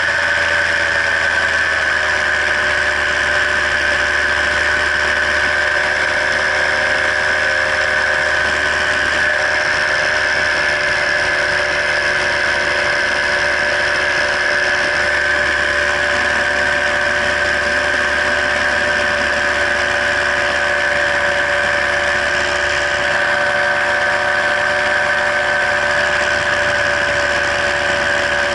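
Paramotor engine and propeller running steadily in flight: a constant drone that drops slightly in pitch about a second in, then holds.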